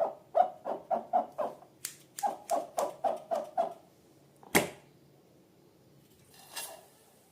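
Rubber balloon squeaking in short, quick strokes, about three a second, with a few sharp clicks among them. A single loud sharp pop comes about four and a half seconds in.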